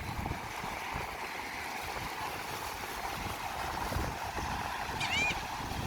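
A seagull gives one short call near the end, rising and falling in pitch, over a steady background hiss.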